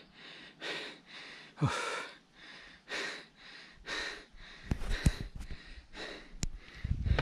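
A man breathing hard from climbing a hill on foot, about one loud breath a second, with a short voiced gasp about a second and a half in. A few low thumps come in the second half.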